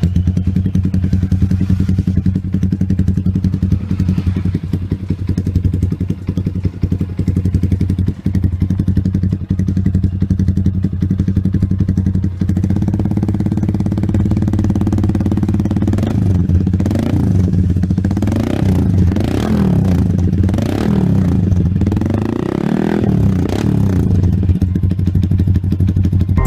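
Yamaha Sniper 150 single-cylinder four-stroke engine running through an aftermarket muffler, idling steadily, then from about halfway in revved up and down several times.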